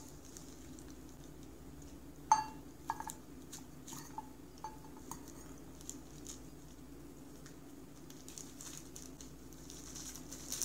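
Stainless steel cat food bowl clinking and ringing as a cat eats kibble from it: one sharp ring about two seconds in, then several lighter clinks. Near the end comes a faint crinkle of the plastic sheet under the cat's paws.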